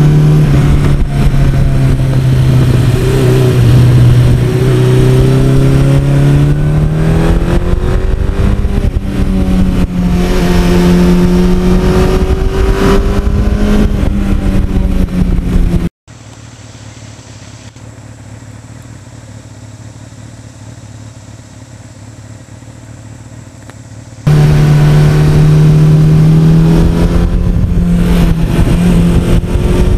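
1982 Suzuki GS1100E air-cooled inline-four running under way, heard from the handlebars with wind noise. Its note sinks slowly, then rises again about eight seconds in. About halfway through the sound drops suddenly to a much quieter steady hum for about eight seconds, then the loud engine comes back.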